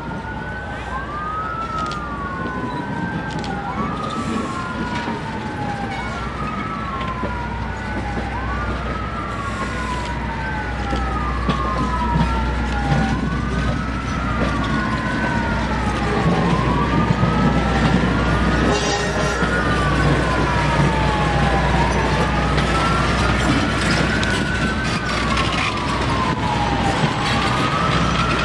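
An emergency-vehicle siren wailing up and down over and over, about one sweep every two seconds, over the low rumble of passenger cars rolling past on the track. The sound grows slowly louder.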